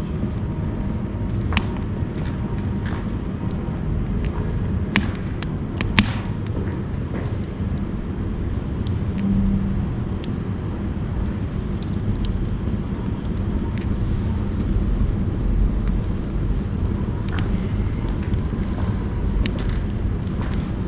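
Firewood burning in a wood stove: a steady low rumble from the fire, with sharp crackles and pops now and then, the loudest about five and six seconds in.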